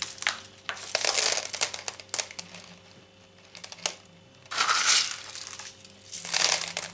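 LECA expanded clay pebbles being put into a yogurt pot around an orchid's roots: three bursts of rattling, crunching pebbles with a few single clicks between.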